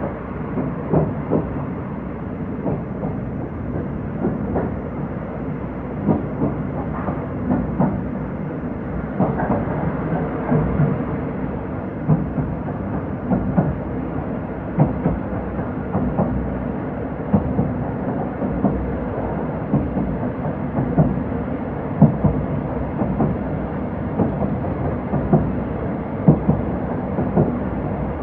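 Old-type Japanese passenger coach running along the line: a continuous rumble with the wheels knocking over rail joints in a repeated clickety-clack, often in pairs.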